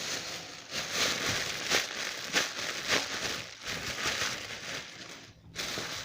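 A foam squishy toy being squeezed and handled, giving a crinkling rustle that comes in repeated surges, dying away near the end.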